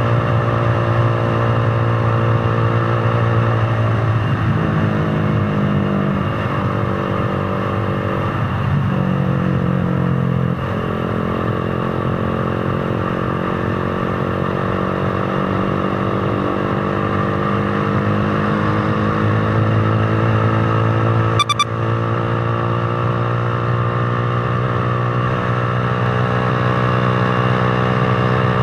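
Motorcycle engine running on the road. Its pitch drops twice, about 4 and 9 seconds in, then slowly rises through the rest. A short sharp click comes about three-quarters of the way through.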